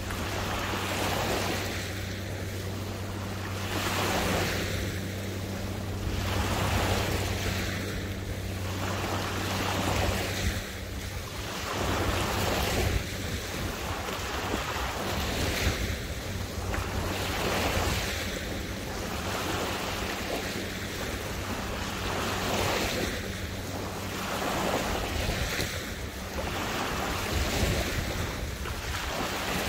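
Small waves lapping in an even rhythm, a surge of water about every two seconds, with wind on the microphone.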